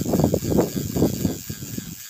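Wind buffeting the microphone: an uneven, gusty low rumble that eases off after about a second and a half.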